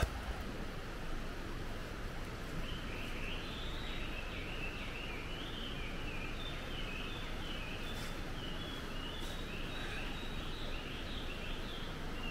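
Steady outdoor background hiss with a bird singing: from about two and a half seconds in, a quick run of short high chirps repeats through the rest.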